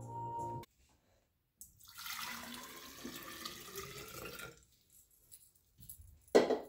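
Water poured from a plastic pitcher into a glass carafe, splashing for about three seconds. A short, loud knock comes near the end.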